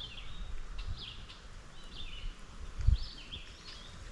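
A bird singing short chirping phrases about once a second, over a low rumble, with a dull thump about three seconds in.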